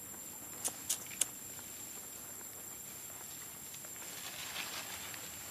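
Three sharp clicks in the first second and a half, then faint rustling in dry leaf litter as a macaque forages on the forest floor, over a steady high-pitched whine.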